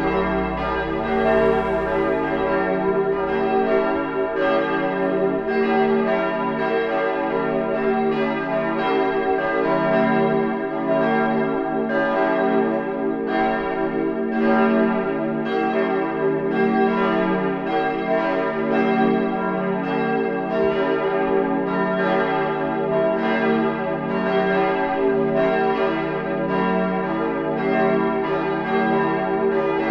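Full peal of church bells: several swinging bells ringing together, strike after strike overlapping in a continuous clangour, rung to call to Sunday service.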